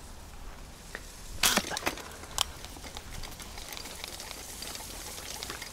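A few sharp cracks or snaps: a cluster about a second and a half in, and single ones near two and two and a half seconds, over a faint steady background hiss.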